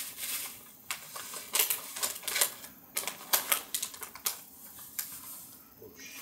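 Hands kneading wet paste fishing bait (tteokbap) in a bowl, making irregular sharp sticky clicks and smacks. The mix has come out too wet.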